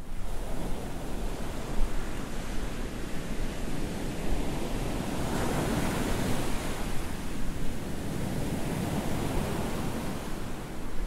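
Sea surf: a continuous wash of breaking waves, swelling louder about halfway through and easing off again.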